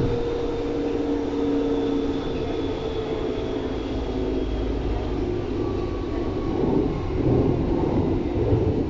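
Berlin U-Bahn train running between stations, heard from inside the car: a steady rumble of wheels on track with several whining tones from the drive that drift slowly lower. The rumble grows louder in the second half.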